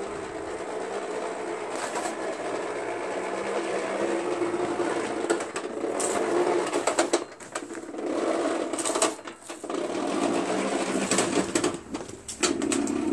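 A Craftsman 524 two-stage snowblower being pushed by hand over an asphalt driveway: its tyres rolling and the machine rattling steadily, louder as it comes closer. From about five seconds in, sharp knocks and clatters break in as it is bumped along.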